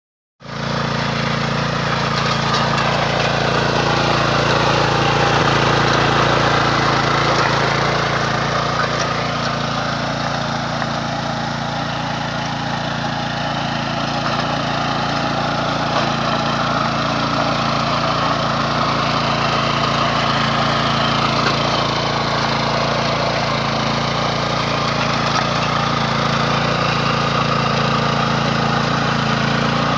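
Small petrol mini-tiller (rotary cultivator) engine running steadily under load as its tines churn through grassy soil; it comes in about half a second in.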